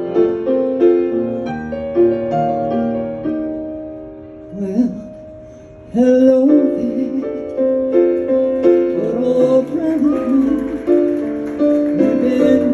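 Piano playing a slow ballad introduction in sustained chords, fading down briefly in the middle; a woman's voice comes in singing over it about six seconds in.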